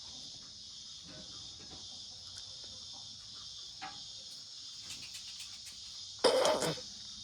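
Steady high-pitched chorus of crickets. About six seconds in comes a short, loud burst that stands out above it.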